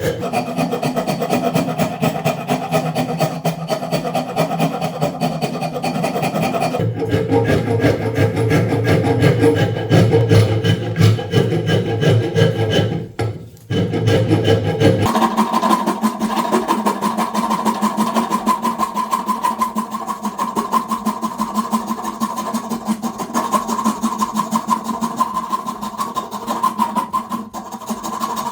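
Wood being worked by hand with quick repeated abrasive strokes, as when rasping or sanding a new wooden hammer handle to shape. The character of the scraping changes abruptly about seven and about fifteen seconds in.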